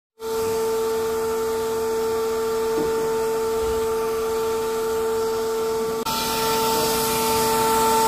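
Vacuum cleaner motor running steadily with a high, even whine over a rushing hiss; the hiss grows brighter about six seconds in.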